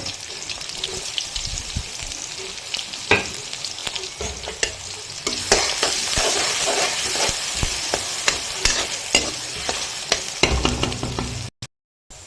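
Chicken sizzling in a hot pan as it is stirred, with a utensil clicking and scraping against the pan. The sound cuts off suddenly near the end.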